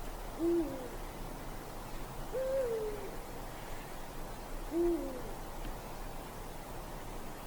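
Eurasian eagle-owl hooting: three short, deep hoots about two seconds apart. The middle hoot is higher, longer and falls away at the end.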